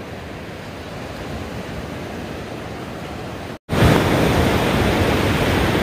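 Surf washing onto a sandy beach, a steady rush of noise. It drops out for a moment about three and a half seconds in and comes back louder.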